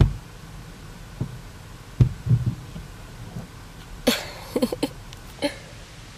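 Windshield squeegee working against the car's glass, heard from inside the cabin: a few dull thumps and knocks, loudest right at the start and about two seconds in, then a brief sharper scraping sound about four seconds in.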